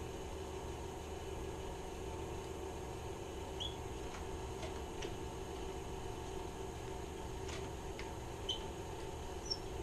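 A steady hum, with a few light clicks and ticks scattered through it from hands working the rope and plastic handle of a paramotor's recoil pull starter.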